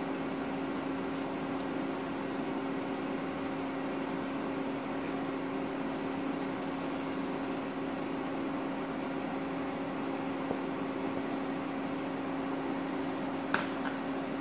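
Steady mechanical hum: a constant low drone with fainter steady tones above it over an even hiss, unchanging throughout. A single short click about a second before the end.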